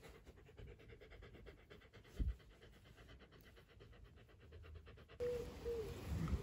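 Corgi panting with rapid, even breaths, faint, with one soft low thump about two seconds in. Near the end the background turns to louder outdoor noise with a few short high whines.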